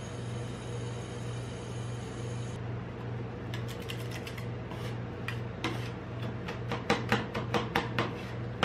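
Steel spatulas chopping and scraping the ice cream mixture on a steel cold plate: sharp metal clicks and scrapes start about three and a half seconds in and come faster and louder near the end, over a steady low hum.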